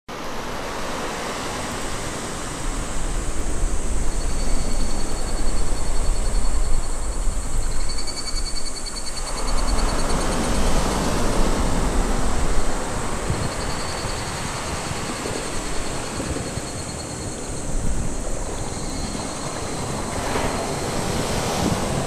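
Small waves breaking and washing up a sandy beach, surging louder and easing off again, over a steady low rumble of wind on the microphone. A faint high-pitched whistle comes and goes.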